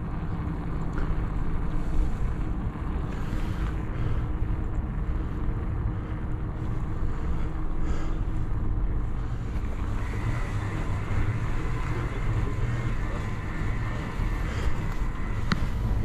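Wind rushing over the microphone of a moving electric bike, with a steady low rumble from the tyres on asphalt. A faint, high, steady whine joins about ten seconds in.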